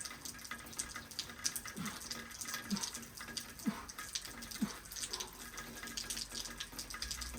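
Steady patter of rain, with a man's short grunting exhales falling in pitch, four of them about a second apart, as he does push-ups.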